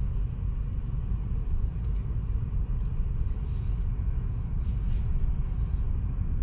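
A car's steady low rumble heard inside the cabin, with three short hisses in the second half.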